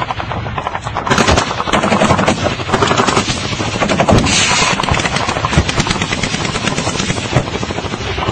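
Sustained automatic gunfire, rapid shots running together, with louder surges about a second in and again around four seconds in.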